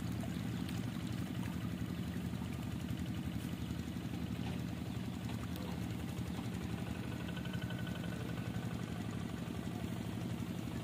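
A small engine running steadily with a fast, even putter.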